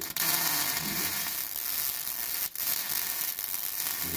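Migomat Ideal 200pulse MIG welder arc crackling and sizzling steadily while a bead is laid, with a faint low hum underneath. The arc breaks off briefly about two and a half seconds in, then strikes again.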